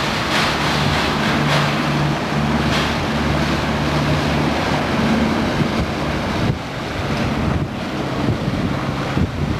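Engine of a small motor cruiser passing close by, a steady low hum that weakens after about six and a half seconds as the boat draws away. Wind buffets the microphone throughout.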